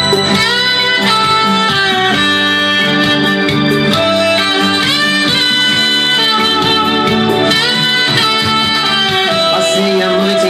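Instrumental music led by a guitar playing held notes that slide into pitch, over a steady bass line.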